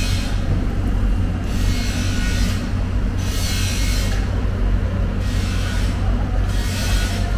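Steady low machinery hum with a hiss that swells and fades every second or two.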